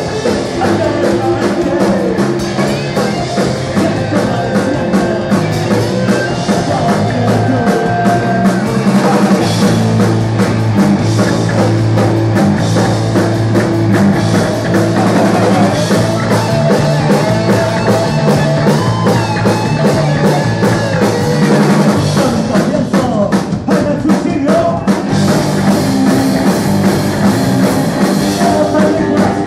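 Punk rock band playing live: two electric guitars, an electric bass and a drum kit, loud and steady throughout.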